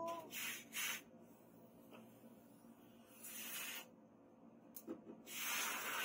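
Red-hot leaf-spring steel blade being quenched in a water trough: short hissing bursts of boiling water and steam, four in all, the longest and loudest near the end as the blade is lifted out with water splashing off it.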